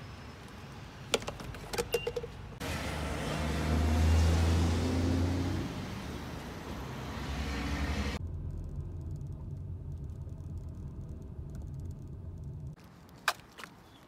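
Gas-station sounds: a few sharp clicks from handling the fuel pump nozzle, then motor-vehicle noise with a low engine hum that swells and fades, then a low traffic rumble, with a sharp click near the end.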